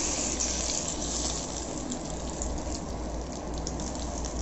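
Butter sizzling with scattered crackles on a hot iron dosa griddle as pav buns toast in it.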